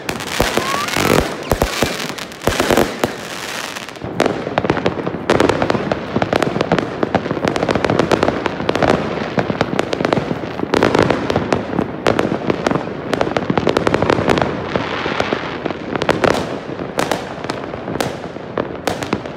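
Many fireworks and firecrackers going off at once: a dense, unbroken string of bangs and crackles with no pause.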